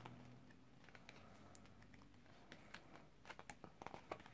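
Faint ticks and light paper sounds of photo book pages being turned by hand, growing more frequent in the last second or so.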